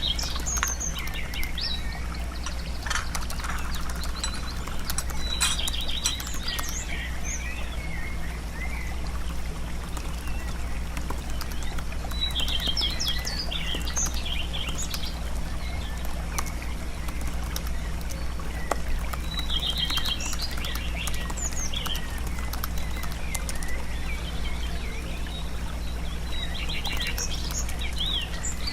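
Songbirds chirping in short clusters of quick trills and chirps every several seconds, over a steady low hum and a faint hiss.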